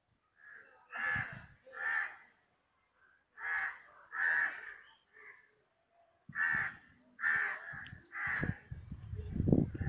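Crow cawing repeatedly, with about seven harsh caws that mostly come in pairs. A low rumble comes in under them near the end.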